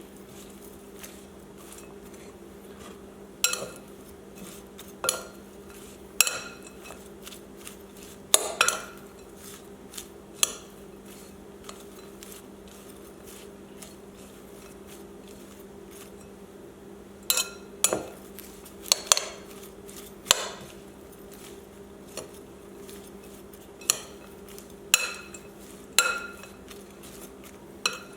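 A metal utensil clinking against a bowl while a mayonnaise sauce is stirred together: sharp clinks in irregular bunches, with a quiet stretch in the middle, over a steady low hum.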